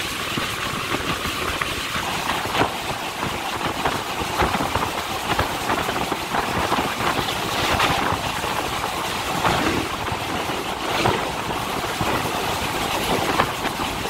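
Train running at speed, heard through an open luggage-van door: a steady rattle and rumble of the van on the track with rushing air, broken by sharp clicks and knocks as the wheels pass over rail joints.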